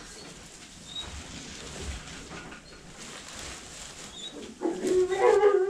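A Boer goat gives one loud, wavering bleat near the end, lasting about a second, over low rustling.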